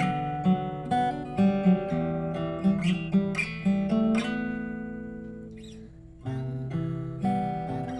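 Acoustic guitar playing a fingerpicked intro riff over a Cmaj7 shape, with hammer-ons, pull-offs and slides. A chord rings out and fades from about four to six seconds in, then the riff starts again.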